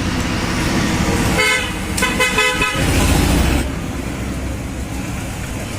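A vehicle horn sounds twice, in a short toot and then a longer one, over a steady low rumble of traffic. A louder rumble swells briefly just after the horn.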